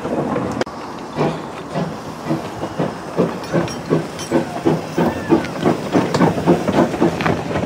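Saddle-tank steam locomotive working slowly, its exhaust chuffing in even beats about three to four a second, with hissing steam.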